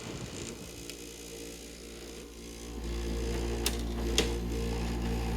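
Hampton Bay 10,000 BTU window air conditioner running on cool: a steady motor hum, then a little under three seconds in the compressor kicks on and the unit's low hum gets markedly louder and stays there. Two short sharp clicks follow about a second later.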